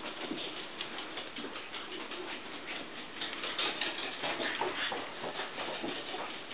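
Three-week-old Icelandic sheepdog puppies scrambling over a fabric blanket while they play: a quick, irregular patter of little paws and claws with rustling cloth, a little louder about halfway through.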